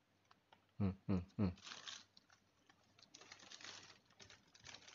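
Three quick, low vocal sounds about a second in, then plastic packaging crinkling faintly as it is handled and nosed.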